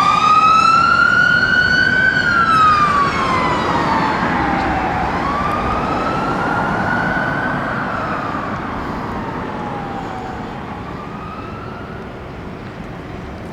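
Fire engine siren on a slow wail, its pitch rising and falling about every five seconds. It fades steadily as the appliance drives away.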